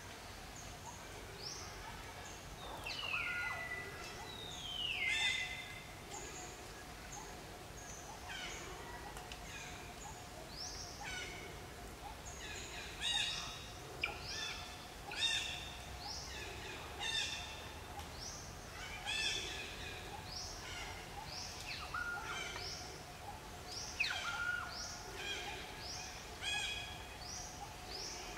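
Birds calling: many short chirps that slide quickly downward, repeating all the way through, with a couple of longer falling whistles about three and five seconds in. A faint steady drone runs underneath.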